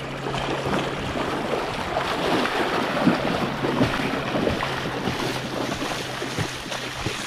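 Several dogs and a wading person splashing through shallow seawater: a continuous churning rush of water with frequent irregular splashes, and wind on the microphone. A steady low hum sits underneath.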